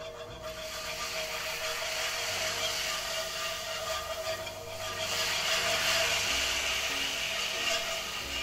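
Wire whisk scraping and swishing through a thick roux-and-vegetable sauce in a hot cast iron skillet, with the sauce sizzling and bubbling as boiling seafood stock is whisked in.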